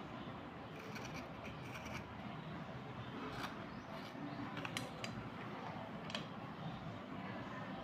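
Wet slate pencils being scraped clean with a small blade over a glass bowl of water, a steady scraping rasp with a few sharp clicks as pencils knock against each other and the glass.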